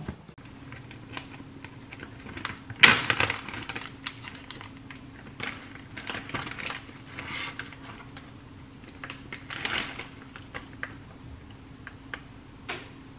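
Crinkling and rustling of a plastic zip-top bag of frozen bulgogi being handled and squeezed over a frying pan: scattered clicks and crackles, the loudest about three seconds in, over a faint steady low hum.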